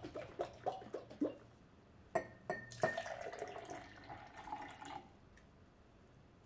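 A screw cap taken off a glass bottle with a few small clicks, then green juice poured from the bottle into a glass tumbler, glugging for about three seconds before it stops.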